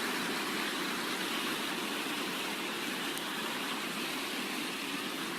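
Steady rush of heavy storm rain and runoff water flowing like a river.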